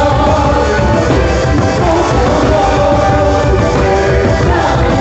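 Loud music with a singing voice and a steady beat.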